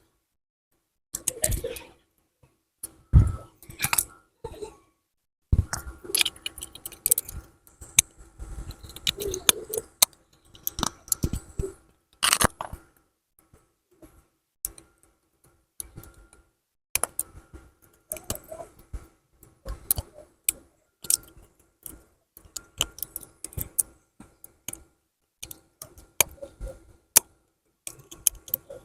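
Irregular small clicks, taps and scrapes of Oppo A54 smartphone parts and small tools being handled, with a few louder knocks, one about three seconds in and one about twelve seconds in.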